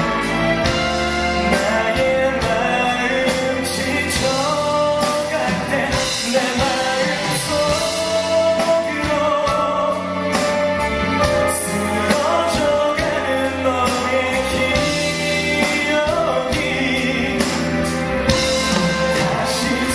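Music with singing over an instrumental backing.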